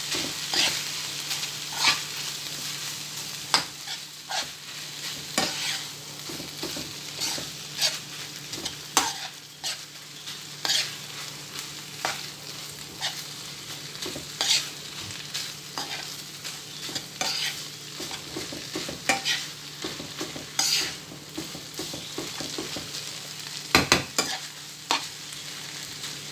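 Minced-meat filling with crème fraîche stirred in a frying pan: a steady sizzle with the utensil scraping and knocking against the pan every second or so, two louder knocks near the end.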